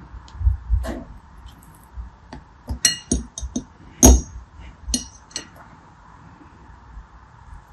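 A metal knife blade slicing through small gel beads and clinking against them and the bowl: a run of sharp, ringing clinks starting about three seconds in, the loudest about four seconds in, after a couple of soft thumps near the start.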